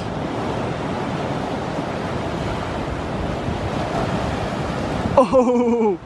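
Big ocean surf breaking and washing in as a steady, even rush. A short voiced exclamation comes near the end.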